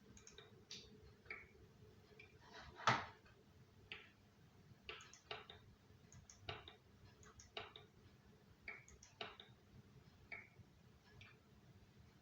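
Knuckles being cracked: about a dozen short, sharp pops at irregular intervals, the loudest one about three seconds in.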